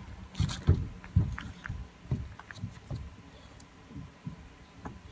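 Scattered low thumps and a few light knocks as a small child climbs a playground climbing wall, her shoes and hands bumping against the wall and its holds.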